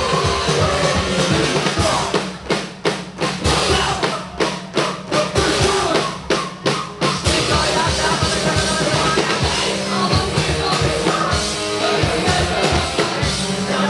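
Live rock band playing loud, with drum kit, electric guitar and bass and some singing. For a few seconds in the middle the band plays stop-start hits with short gaps of near silence between them, then carries on.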